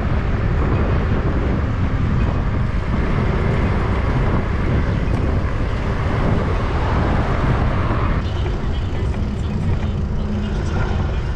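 Steady wind rush and rolling noise from riding a bicycle, loud in the low end and without a clear rhythm or pitch.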